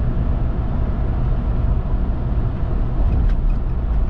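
Old Ford truck running at steady road speed: a continuous low engine drone with tyre and road noise.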